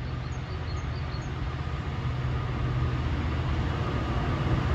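Freightliner Class 66 diesel locomotive approaching under power at the head of a freight train: a steady low engine drone that grows louder as it nears.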